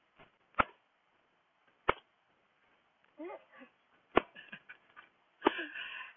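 Thin metal rug beater whacking a rug held up in the air, four sharp slaps at uneven intervals, beating the dust and dirt out of it.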